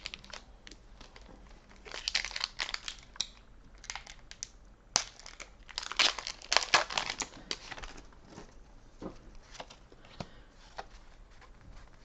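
Foil Pokémon TCG booster pack being torn open and crinkled, in two bursts, the longer and louder one in the middle. Fainter rustles and clicks of the cards being handled follow near the end.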